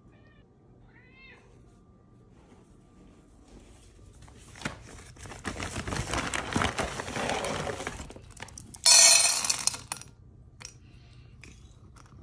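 A domestic cat meows twice in short calls near the start. A few seconds of rattling, clattering noise follow, then a loud rush of noise lasting about a second, as food is readied at the metal feeding bowls.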